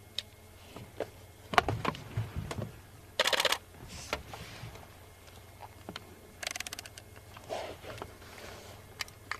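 Handling noise: scattered clicks and knocks, with two short rapid rattles about three seconds in and again just after six seconds.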